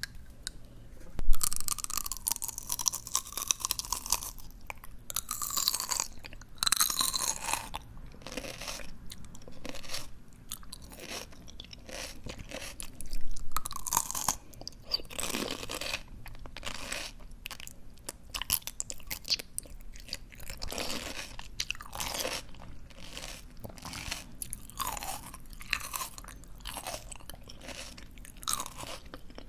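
Close-up chewing of crisp, juicy ice plant stalks: repeated wet crunching bites, the loudest about a second in and another near the middle.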